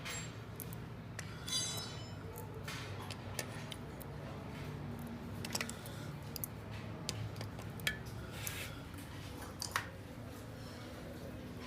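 Scattered light metallic clinks and clicks of tools and small metal parts being handled, a dozen or so spread irregularly, over a steady low hum.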